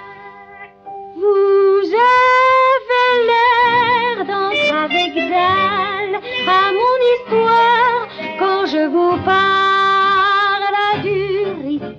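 A woman singing a French cabaret song over instrumental accompaniment, with long held, high notes and vibrato, the song ending near the end.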